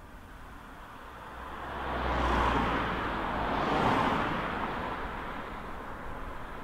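A road vehicle passing close by: a rushing tyre-and-engine noise that swells over a couple of seconds, peaks twice, about two and a half and four seconds in, then fades away.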